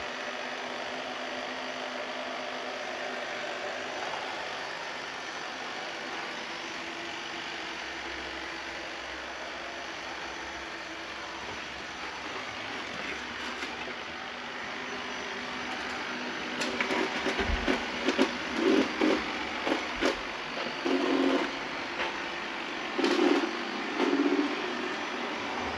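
Eufy LR30+ robot vacuum cleaner running with a steady whir. About two-thirds of the way through, louder irregular bursts and clicks break in over it.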